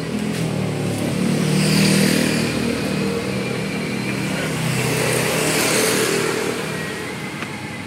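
Engines of motor vehicles passing on the street, twice swelling to a peak and fading: a humming engine note with tyre hiss.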